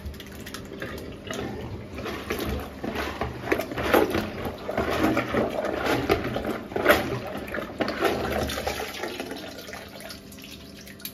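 Plunger worked up and down in a blocked toilet bowl, water sloshing and splashing with each irregular stroke, easing off about ten seconds in.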